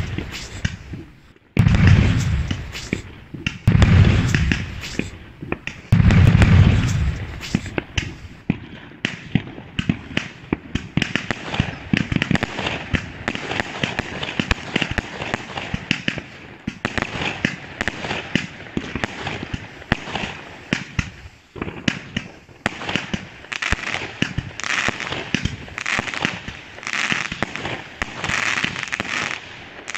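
Aerial fireworks going off. Four heavy booms come in the first seven seconds. After that, a dense, fast run of sharp pops and crackles keeps going.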